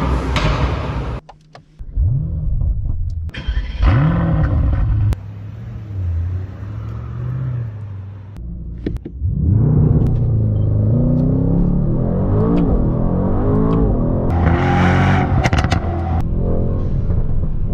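Brabus Rocket 900's 4.5-litre twin-turbo V8 revving: two short blips about two and four seconds in, a lower steady run, then a rising rev about ten seconds in that is held loud with the pitch wavering.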